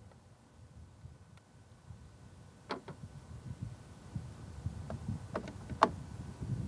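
Low wind rumble on the microphone with a few sharp clicks and knocks from handling the equipment, one about three seconds in and a cluster near the end, the loudest just before the end.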